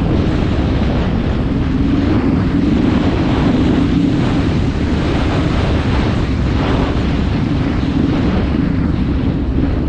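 Wind rushing over the microphone of a Honda Transalp 600 motorcycle riding at speed, with the 600 cc V-twin engine droning steadily underneath.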